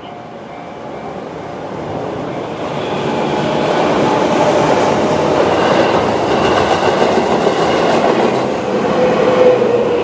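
JR 211 series electric commuter train passing over a level crossing. The wheels clatter over the rails, growing louder over the first few seconds and staying loud. At the start the crossing's electronic warning bell is ringing under it.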